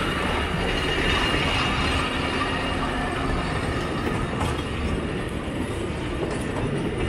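Small train of open passenger carriages rolling past, its wheels running on the rails in a steady rumble.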